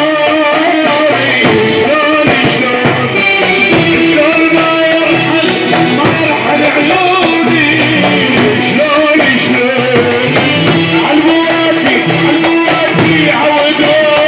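Loud Arabic music with a wavering melody line; a steady percussion beat comes in about three seconds in.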